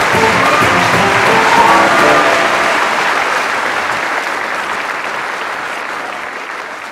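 Audience applauding, with music playing underneath for the first couple of seconds. The applause then carries on alone and gradually fades away.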